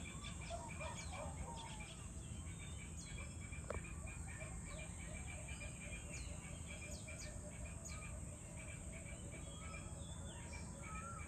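Evening outdoor ambience: several birds chirping and calling in short, scattered notes over a steady high-pitched insect drone, with a low background hum underneath.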